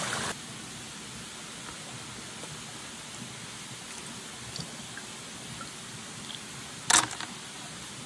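Shallow stream water running over rocks, a steady rush of noise, with one sharp knock about seven seconds in.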